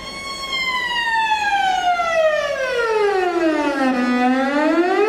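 A bowed cello string, stopped with the finger pressed down, sliding in one continuous glissando from a high note down to a low one over about four seconds, then gliding back up near the end.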